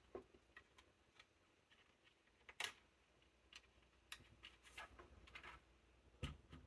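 Faint, scattered clicks and light taps of a Lenovo M910q Tiny desktop's parts being handled during disassembly, with two louder knocks: one about two and a half seconds in and one near the end.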